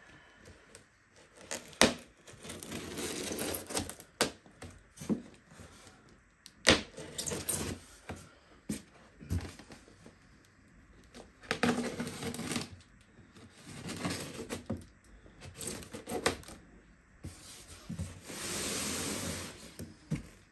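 A large cardboard box and its packaging being handled and opened: sharp knocks and clicks between noisy scrapes about a second long, with a longer even scrape near the end.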